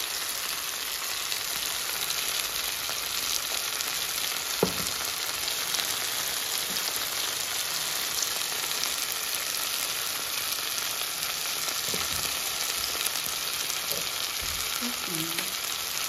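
Onions, tomatoes and grated carrots frying in olive oil in a pan: a steady crackling sizzle. A single sharp tap stands out about four and a half seconds in.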